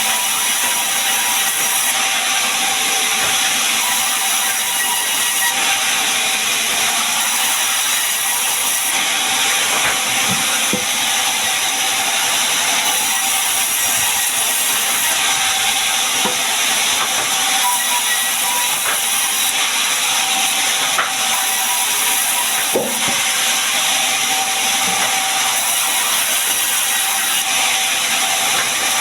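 Large sawmill saw running steadily through gmelina timber: a continuous high hiss with a steady tone beneath it and a few faint knocks.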